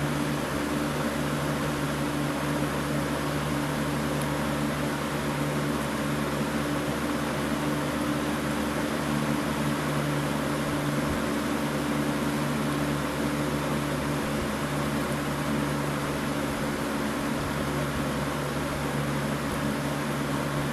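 1990–91 Galaxy 20-inch box fan (Model 3723) running steadily: its motor hums at a constant pitch under a steady rush of air from the blades.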